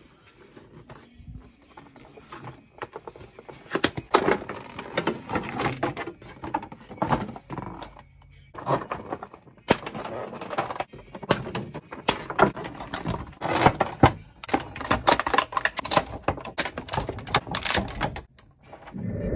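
A cardboard toy box and its clear plastic blister tray being opened and handled: irregular crinkling, crackling and clicking of the plastic, busiest from about four seconds in.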